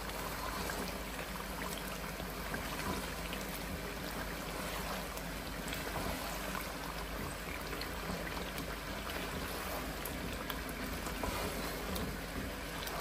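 Yogurt being stirred into spice masala frying in a pot: a steady sizzle and bubbling, with a few faint scrapes or taps of the spoon.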